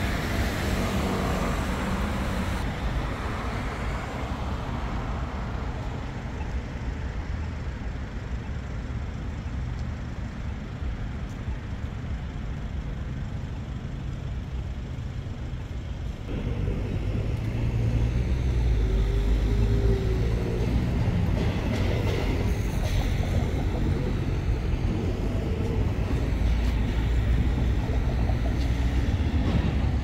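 City street traffic: a steady wash of passing vehicles. It becomes louder, with a heavier low rumble, about halfway through.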